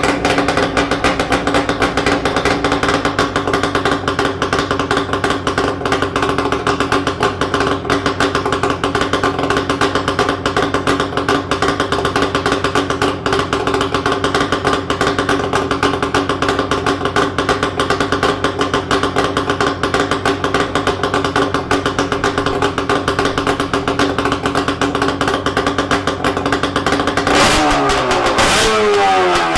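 Yamaha RZ250's two-stroke parallel-twin engine idling steadily and loudly through Sugaya collector expansion chambers with the silencers removed. Near the end the throttle is blipped twice and the revs fall away.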